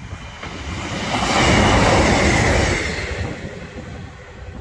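Class 155 Sprinter diesel multiple unit passing over the level crossing at speed: engine and wheels on the rails build up about a second in, peak for about a second and a half, then fade as it goes by.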